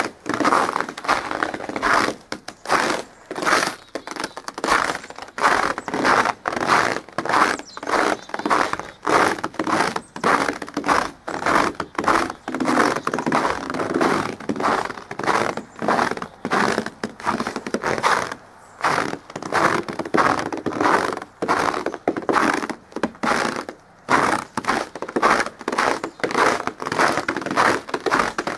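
Footsteps crunching through snow at a steady walking pace, about two steps a second, with two short breaks in the second half.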